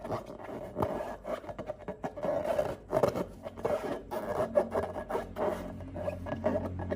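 Close, dense crackling and scraping of sticky slime being worked, an irregular stream of small clicks and rubs with no steady rhythm.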